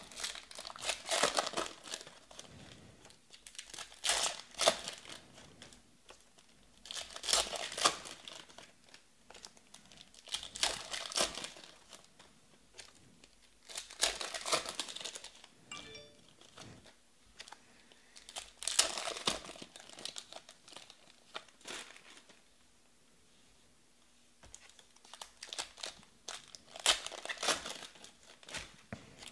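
Foil trading-card pack wrappers crinkling and tearing as they are opened by hand, in bursts every few seconds, with a pause of about two seconds late on.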